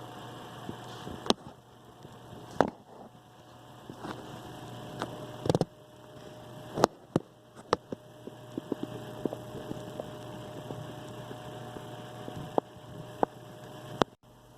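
Scattered sharp clicks and knocks from hands working on a Beta VCR, over a steady low hum, with a faint steady whine for several seconds in the second half.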